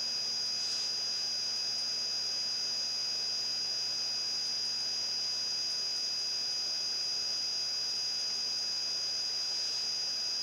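Steady electrical hum and hiss with a thin high-pitched whine, unchanging throughout: the background noise of the recording setup, with no distinct sound events.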